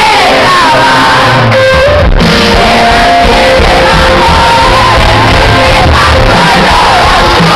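Live pop band with a male lead singer, loud, with the crowd shouting and singing along. The bass and drums drop out for a moment about one and a half seconds in and come back in at about two seconds.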